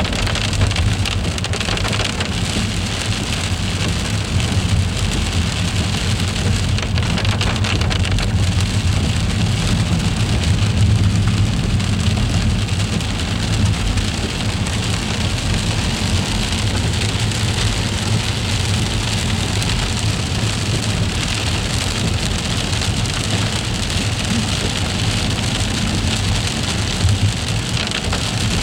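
Freezing rain falling steadily in an ice storm, a dense even patter, with a low steady hum underneath.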